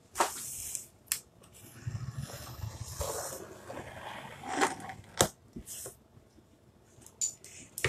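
Hands handling a large flat cardboard mailer box: soft scraping and rustling as a palm slides and presses over the cardboard, with a few short sharp taps and clicks, the loudest about five seconds in.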